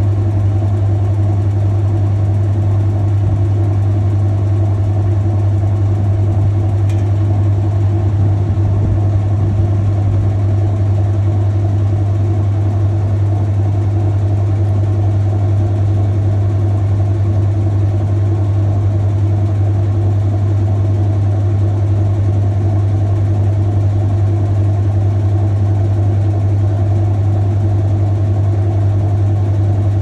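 Maytag Heritage top-load washing machine spinning its load: a steady low motor hum with an even whir above it.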